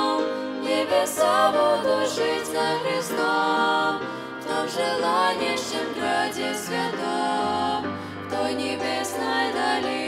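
Three female voices singing a slow Russian-language hymn together over a soft instrumental accompaniment.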